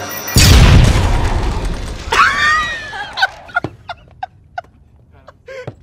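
Cartoon stock car crashing: a sudden loud bang and crunching impact with a low rumble that dies away over about two seconds, a brief wavering screech, then scattered clattering of debris as the car tumbles.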